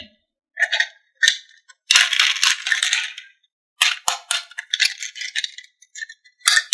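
Marbles clattering and rolling down a HABA wooden marble-run slope. A few sharp clicks are followed by a dense run of rattling about two seconds in and another about four seconds in.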